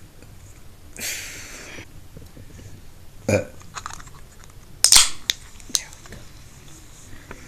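A woman burping: a short burp about three seconds in and a louder, sharper one about two seconds later, with a breathy hiss about a second in.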